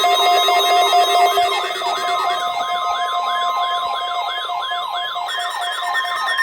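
Weather radio alert sounding for a NOAA Weather Radio required weekly test: an electronic siren wail rising and falling about three times a second, layered over steady alarm tones.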